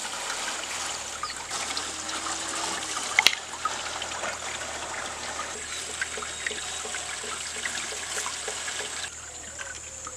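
Water trickling and dripping off a wet fishing net as it is hauled hand over hand out of the river into a wooden boat, with one sharp knock about three seconds in. The sound drops to quieter water near the end.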